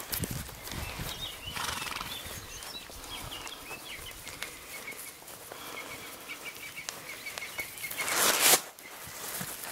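Young horses moving about on a grass pasture, with soft hoof thuds early and faint high chirping behind. About eight seconds in, a loud half-second rush of noise close to the microphone, the loudest sound, cutting off suddenly.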